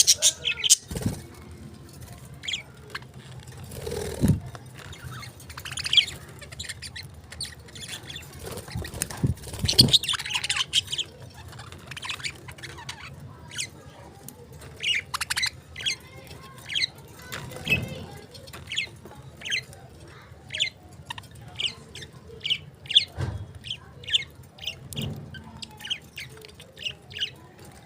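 Pet parrots chirping in many short calls, coming thick and fast in the second half, with a few soft low thuds.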